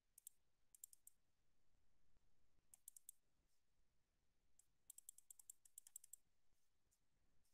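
Faint clicking of computer keyboard keys in several short, quick runs.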